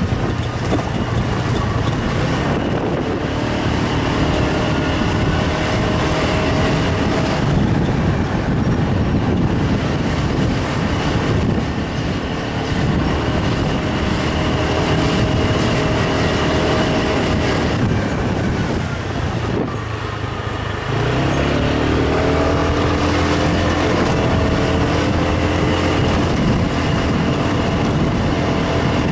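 A vehicle's engine running while driving along a street, with wind and road noise over the microphone. About two-thirds of the way through it eases off briefly, then picks up again with a rising pitch as it accelerates.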